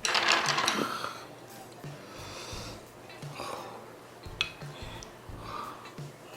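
A loud slurp over the first second, as of soup or noodles being sucked in while eating, followed by softer eating noises over quiet background music.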